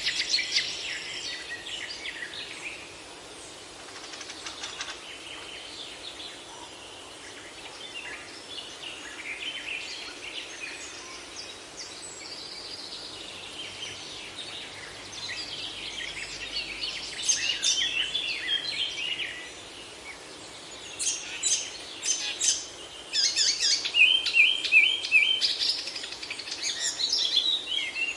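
Several songbirds singing and chirping over a steady background hiss, with bursts of quick chirps and trills at the start and again from about halfway through, where the song grows louder.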